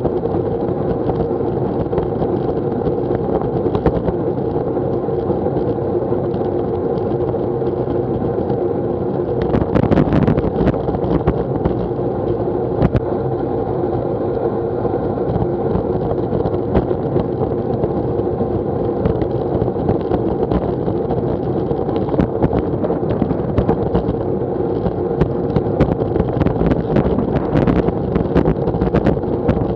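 Road and wind noise picked up by a bicycle-mounted action camera riding at about 20 mph on a wet road: a steady rush with scattered knocks and rattles from the road surface, more of them about ten seconds in and near the end.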